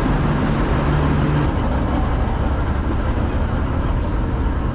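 Steady low rumble and noise of a vehicle in motion; a low hum and a faint high ticking stop abruptly about a second and a half in.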